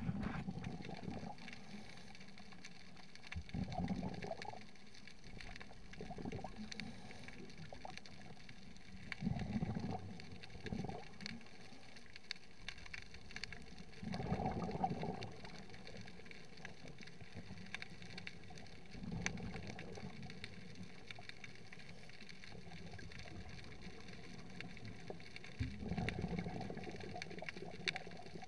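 Water heard underwater through the camera: a steady low hiss, with a gurgling rush swelling every five or six seconds.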